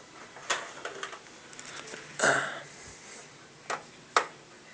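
Handling noise from an optical drive being fitted into a tool-less PC case drive bay: a few sharp plastic and metal clicks and one short scraping rustle.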